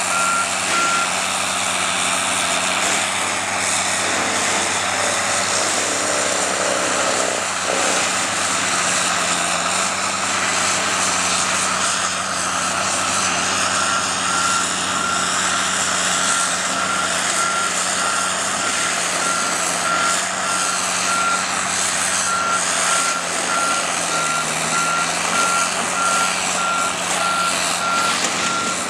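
Tigercat 726M mulcher running under load, its engine and Rowmec-style cutterhead giving a loud, steady machine noise. Its reversing alarm beeps at the start and again through the second half as it backs up.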